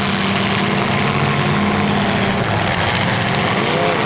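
Demolition derby cars' engines running loudly together, with one engine revving up and back down near the end.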